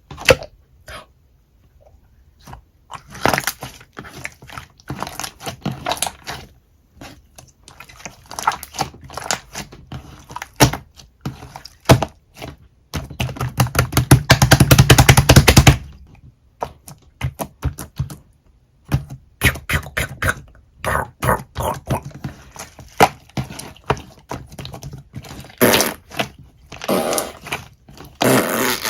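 Slime being squeezed and pressed by hand, giving irregular sticky clicks and crackles, with a dense run of rapid clicking for about three seconds in the middle.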